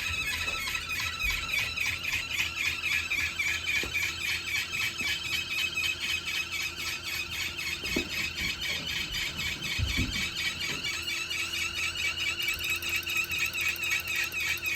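2021 Wahoo Kickr smart bike trainer squealing while it runs: a high-pitched squeal that pulses in a rapid, regular rhythm and wavers slightly in pitch.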